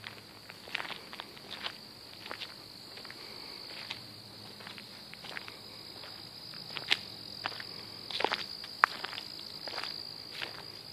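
Steady high-pitched drone of insects calling, with uneven footsteps on a gravel path over it, the steps loudest past the middle.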